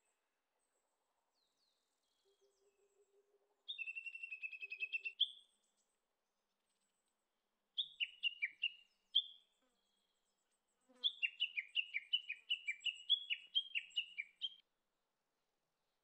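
Japanese bush warbler (Horornis diphone) singing in three bursts. There is a quick warbled trill, then a few short notes, then a long run of rapid, repeated falling notes at about three a second.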